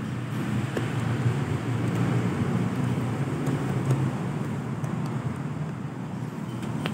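Vespa two-stroke engine, fitted with a Japanese carburettor and a Yamaha RXZ reed valve, running steadily at low speed.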